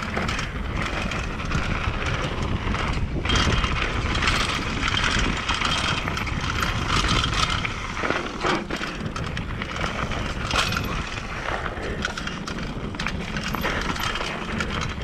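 Mountain bike riding down a dry dirt trail: a steady rush of tyres rolling on dirt and the bike rattling, with a few sharp knocks from bumps.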